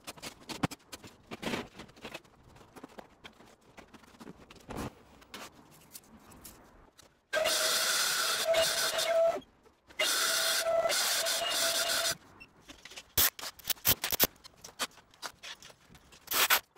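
Hand-held power cutter with a dust-extraction hose cutting into a tiled wall, running in two loud steady bursts of about two seconds each, with scattered clicks and knocks around them.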